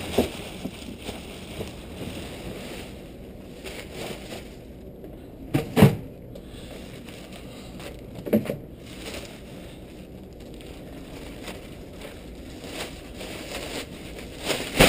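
Plastic trash-can liners rustling and crinkling as they are handled, with a few sharp knocks, the loudest about six seconds in.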